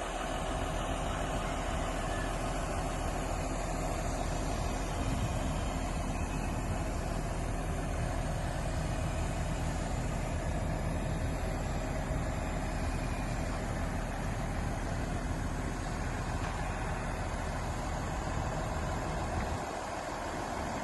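Diesel engine of a Cat 143H motor grader running steadily at idle, a continuous low rumble. The low rumble thins out near the end.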